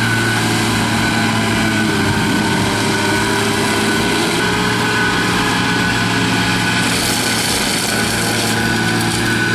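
An engine running steadily at a constant speed, with a high thin whine on top.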